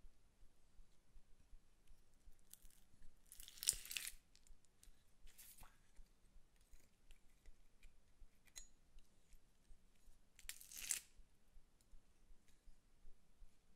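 Glittery slime squishing and crackling as it is worked in a metal garlic press and squeezed out through the holes. Two louder crackly squishes stand out, about four seconds in, with a sharp click, and again about eleven seconds in; between them only small clicks and handling.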